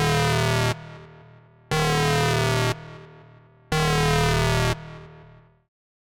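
Harsh electronic alarm buzzer sounding three times on one low, buzzy pitch, each blast about a second long and about two seconds apart, each followed by an echo that dies away; the last echo fades out near the end.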